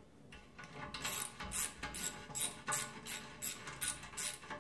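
Ratchet wrench clicking in quick back-and-forth strokes, about three a second, starting about a second in. It is running a nut and stack of washers down a stud on a Ford 9-inch rear axle housing to pull the stud snug into the flange.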